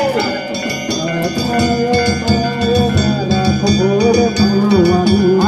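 Danjiri festival music: drums beaten in a steady rhythm under the ringing clang of metal hand gongs, with wavering voices chanting over it.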